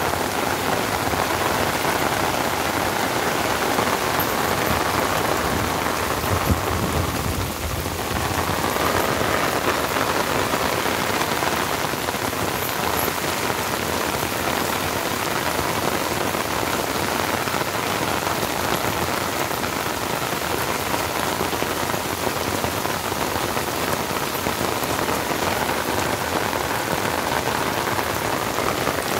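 Heavy monsoon rain falling steadily on trees and a waterlogged ploughed field, a dense, even hiss. A brief low thump sounds about six and a half seconds in.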